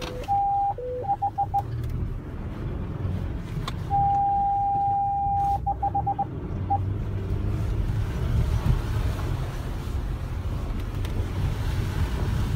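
4x4's parking-sensor warning beeping from inside the cabin: a steady tone, then quick pips, twice, with a pause between, ending about seven seconds in. Under it the vehicle's low driving rumble.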